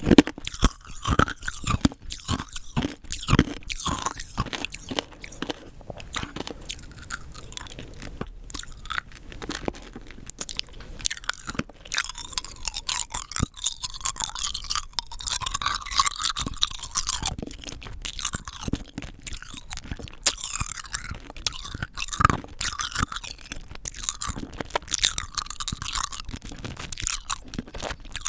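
Rock candy crystals crunching and cracking between the teeth, with many sharp, irregular crackles, close up to the microphone.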